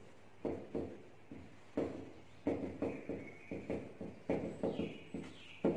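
Marker writing on a whiteboard: a run of irregular short taps and knocks as the strokes land on the board, with a brief squeak of the tip a couple of times.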